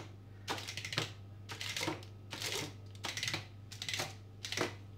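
A plastic ridged pastry roller rolled back and forth over a thin sheet of green mint dough on baking paper, pressing lines into it. Each pass gives a short rustling, clicking stroke, about two a second.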